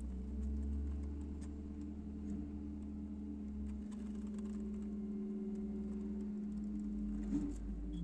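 Heavy diesel machinery running steadily: the engine and packer hydraulics of a rear-loading garbage truck, with a wheel loader working close by, a low even hum that dips briefly in pitch about seven seconds in.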